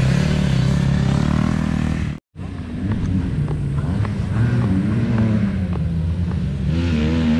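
Dirt bike engines running: a motocross bike revving as it pulls away, a sudden cut to silence about two seconds in, then bike engines revving up and down in pitch as they ride the track.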